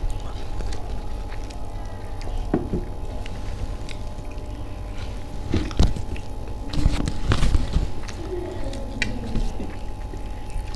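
A person eating: chewing, with a few sharp clicks about two and a half seconds in, around six seconds and again a second later. Under it runs a steady low hum with a faint steady tone.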